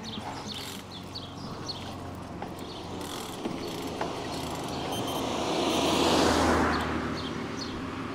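A motor vehicle passing by: its tyre and engine noise swells about five seconds in, peaks and fades again within a couple of seconds, over the steady rush of the bike ride.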